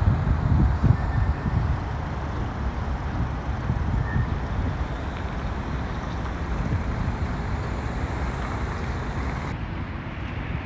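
Outdoor city ambience: steady road traffic noise, with wind buffeting the microphone in the first couple of seconds. The background changes abruptly near the end, at a cut to another spot.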